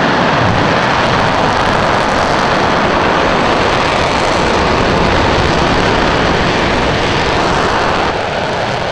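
Aerojet Rocketdyne RS-68A liquid-hydrogen/liquid-oxygen rocket engine firing on a test stand during a hot-fire acceptance test. It makes a loud, steady rushing noise that dips slightly near the end.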